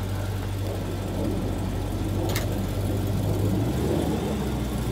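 Car engine idling steadily with a deep, even hum, and a single sharp click about halfway through.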